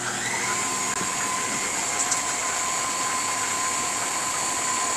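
KitchenAid tilt-head stand mixer running steadily with its beater turning flour, water and yeast into pizza dough; a steady motor whine sits over the running noise.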